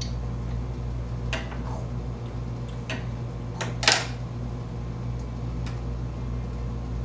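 Plastic toy dishes and spoons clacking lightly as they are handled on a table: a few scattered knocks, the loudest about four seconds in, over a steady low hum.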